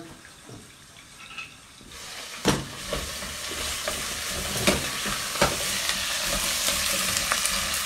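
Chopped onion and carrot frying in olive oil in a stainless steel saucepan. The sizzle starts about two and a half seconds in and keeps building, with a few knocks of a wooden spoon against the pan as it is stirred.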